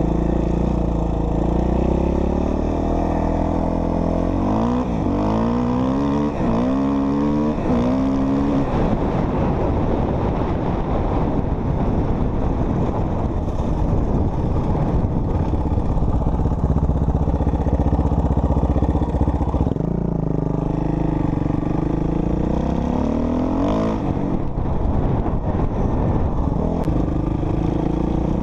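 Suzuki RM-Z450 four-stroke single-cylinder dirt bike engine being ridden. Its pitch climbs in several quick surges a few seconds in and again after about twenty seconds, and holds steadier in between. The owner fears the noises it makes are a rod knock.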